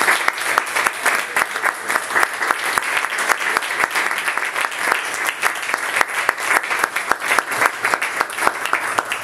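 Applause: many hands clapping at once.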